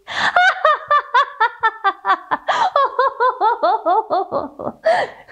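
A woman doing an exaggerated hyena-style laugh: rapid high 'ha' pulses, about five a second, in runs that slide down in pitch. There is a breathy gasp near the end.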